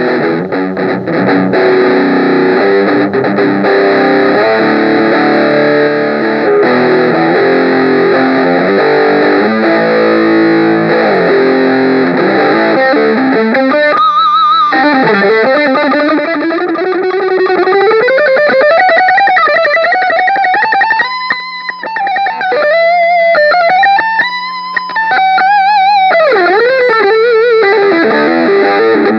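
Electric guitar played through a Zoom G7 multi-effects unit, sounding dense chords for about the first half, then a single-note lead line with long slides and bends in pitch.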